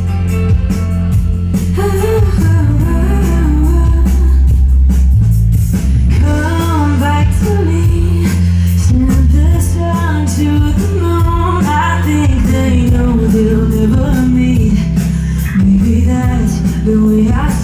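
Live band playing a song, with a singer's voice over guitar and a heavy, steady bass. The vocal line comes in about two seconds in.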